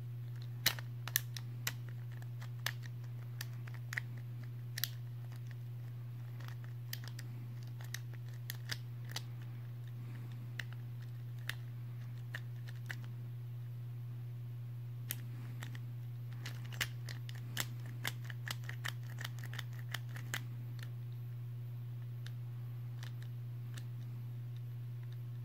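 Small, sharp, irregular plastic clicks from a Right Artemis A5 Beyblade layer, whose slopes are loose, as fingers turn and handle it. The clicks bunch up in the first few seconds and again after about fifteen seconds, over a steady low hum.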